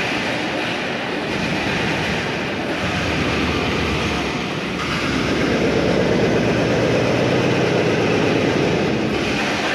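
Steady rumble of city street traffic, growing a little louder about five seconds in.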